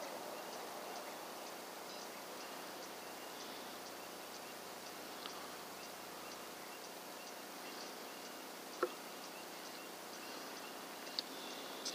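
Steady night-time outdoor hiss with faint, evenly repeated insect chirps, and one faint click about nine seconds in.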